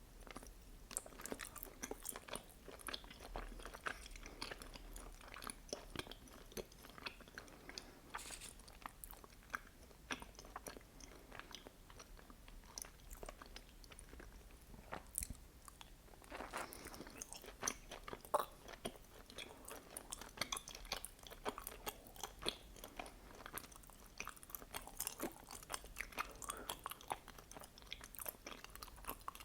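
Close-miked chewing of mochi with red bean paste filling: a steady run of small mouth clicks and smacks, with a denser, noisier stretch of about a second near the middle.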